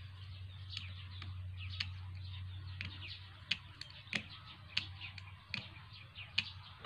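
A homemade plastic airgun trigger mechanism is worked by hand, giving a string of sharp, irregular clicks, over birds chirping and a low steady hum.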